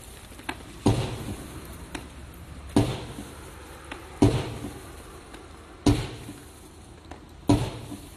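A 100-shot fireworks cake firing: five loud bangs, one about every 1.6 seconds, each trailing off into crackle, with small clicks between them.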